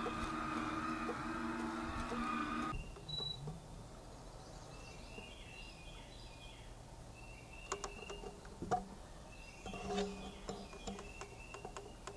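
Electric window-shade motor in a motorhome running with a steady hum, cutting off abruptly about two and a half seconds in. Faint high chirps and a few soft clicks follow.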